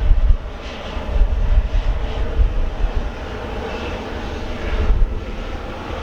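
Jet airliner engines running steadily, with strong gusts of wind buffeting the microphone in a deep, uneven rumble.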